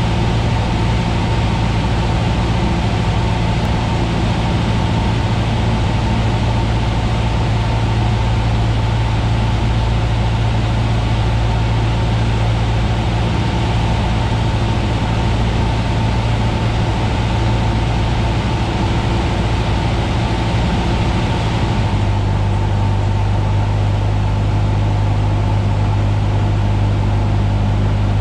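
Cessna 172's piston engine and propeller droning steadily inside the cockpit, with wind noise over the airframe. About 22 seconds in the engine note drops lower and the wind hiss eases as power comes back for the landing approach.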